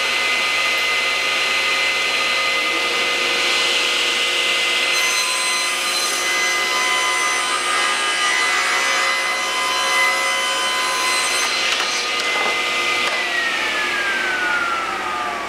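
SawStop table saw running with a steady whine while its blade cuts through a sheet of MDF, the cutting noise loudest through the middle. Near the end the saw is switched off and the whine falls in pitch as the blade spins down.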